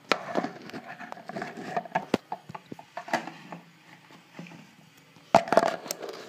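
Handling noise from a phone being gripped and moved close to its microphone: scattered knocks and clicks with fingers and shirt fabric rubbing over it, loudest in a cluster near the end.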